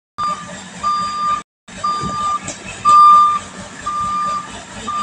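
Backhoe loader's reversing alarm beeping about once a second over the steady hum of its diesel engine, with the loudest beep about three seconds in. The sound drops out briefly at the start and again about a second and a half in.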